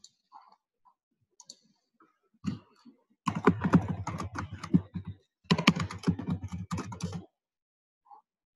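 Rapid typing on a computer keyboard, in two spells of about two seconds each with a short pause between, after a few scattered taps.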